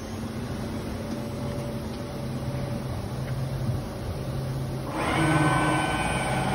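Ligmatech MDE-110 feed-through case clamp and its conveyor running as a cabinet carcass feeds in: a steady low machine hum, then about five seconds in a louder machine noise with several steady whines and a hiss sets in.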